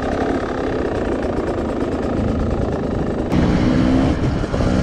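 Dirt bike engine running while riding on a dirt trail, mixed with wind noise on the microphone. About three seconds in the sound changes abruptly to a louder, steadier engine note.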